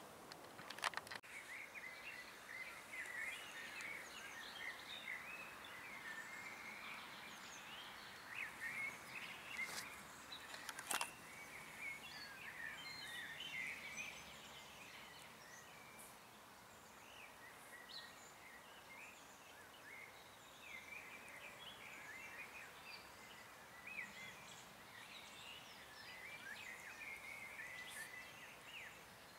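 Faint birdsong outdoors: many small birds chirping on and off, over a light hiss. Sharp clicks come about a second in and again around ten and eleven seconds.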